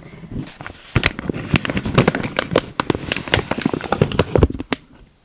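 Plastic packaging crinkling and crackling close to the microphone as a blind box is unwrapped: a dense run of sharp crackles that starts about a second in and stops just before the end.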